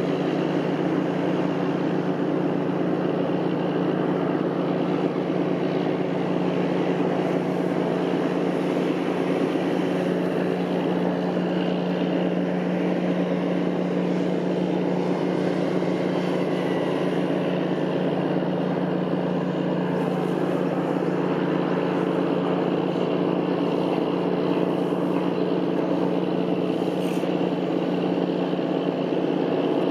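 Diesel engine of a gravel-carrier ship running steadily at low speed: a constant low drone with a steady hum that does not change.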